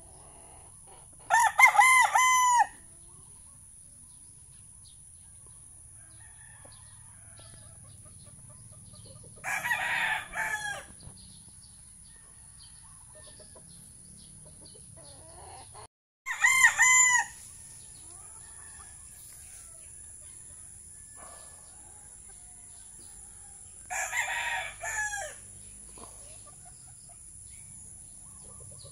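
Young gamefowl stag roosters crowing: four crows, each about a second and a half long and spaced roughly seven seconds apart, the first and third loud and close, the second and fourth fainter.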